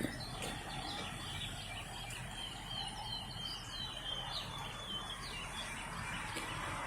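Small birds chirping in a quick run of short high chirps, which fade out after about five seconds, over steady low background noise.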